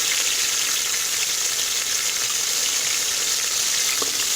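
Shallots and green chilli frying in hot sesame oil in a pressure cooker: a steady sizzle with fine crackling. There is a light tap about four seconds in.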